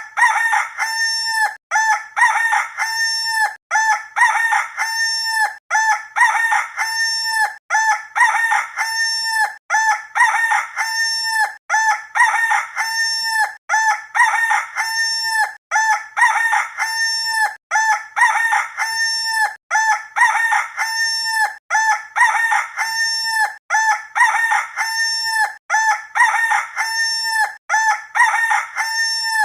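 Rooster crowing, the same crow repeated over and over about every two seconds, like a looped sound effect.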